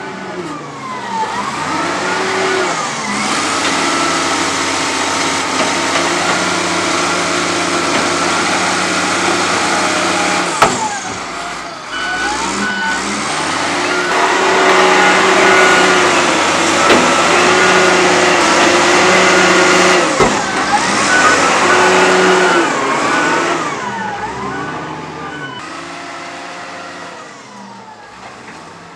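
XCMG ZL50GN wheel loader's diesel engine revving up and down over and over as the machine works, with a couple of sharp knocks and short high beeps at times. It fades near the end.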